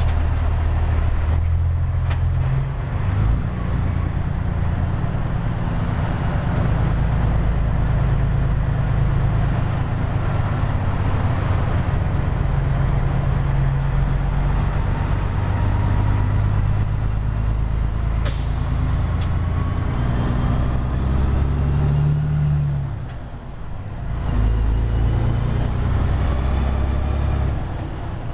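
Caterpillar C15 diesel of a Peterbilt 379 heard from inside the cab, pulling through the low gears of its 18-speed transmission in stop-and-go traffic, the engine note stepping up and down with each shift. Two short sharp sounds come about 18 and 19 seconds in, and the engine drops away briefly about 23 seconds in.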